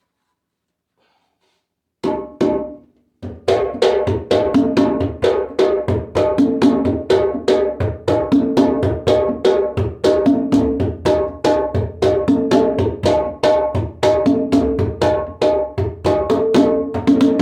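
African skin-headed hand drum played by hand: after about two seconds of silence come two strokes, a short pause, then a steady fast rhythm of ringing strokes that carries on.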